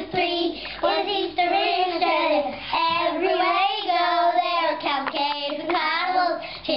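Children singing a song together, their voices gliding through a sung line.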